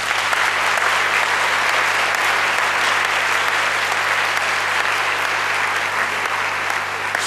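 Large audience applauding steadily, easing slightly near the end.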